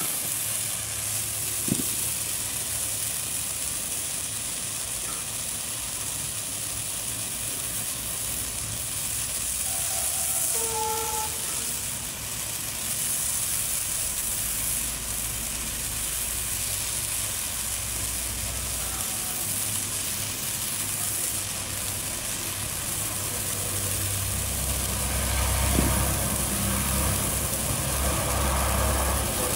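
Hand-held Neon Morning Glory firework stick burning with a steady hiss and sizzle as it throws sparks.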